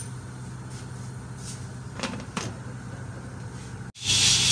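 Two light knocks on an aluminium pressure cooker's lid over a low steady hum. Near the end comes a loud steady hiss of steam venting from the cooker's weight valve as it cooks under pressure.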